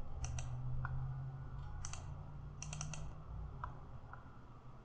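Computer mouse clicking in a few quick clusters of two to four clicks, with a couple of single faint ticks, over a low steady hum.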